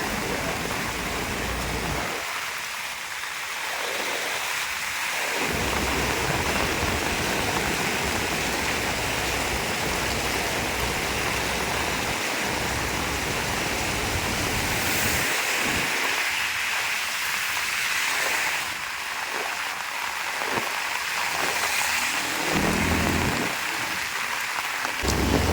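Heavy rain falling steadily, a dense even hiss, with a low rumble lasting several seconds in the middle.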